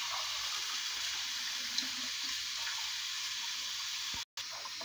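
Steady hiss from a pot of milk heating on a gas stove, just short of the boil.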